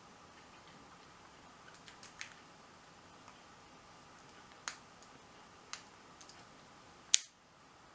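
A pick and tension wrench working the pins of a small 40mm Master padlock make faint, scattered ticks. About seven seconds in there is one loud, sharp click as the lock is picked and the shackle springs open.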